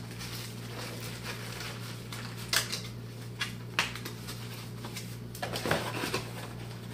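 Cardboard boxes being handled: flaps and boxes knocked and shifted, giving a few sharp taps and knocks with a short cluster of them about two-thirds of the way in, over a steady low hum.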